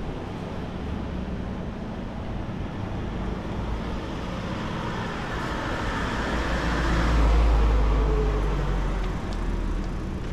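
A motor vehicle passing close by on a city street over steady traffic noise. Its engine rumble and tyre hiss swell to a peak about seven seconds in, then fade.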